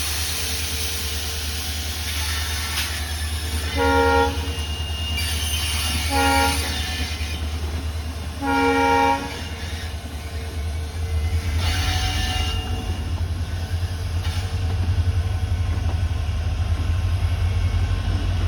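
WDG4 diesel locomotive's two-stroke V16 engine running with a deep, steady hum, and its multi-tone horn sounding three short blasts about four, six and eight and a half seconds in, the last the longest. Near the end the engine grows louder and more throbbing as the locomotive comes closer.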